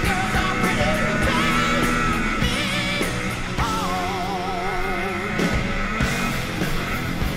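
Rock music with a singing voice over a steady drum beat.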